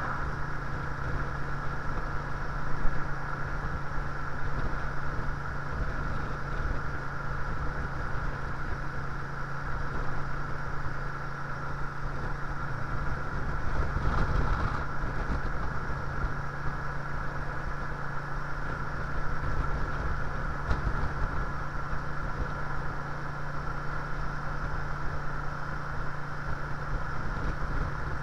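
Cruiser motorcycle engine running at a steady cruising pace, heard from the rider's seat, with wind rumbling over the chest-mounted microphone. A brief louder knock comes about three seconds in.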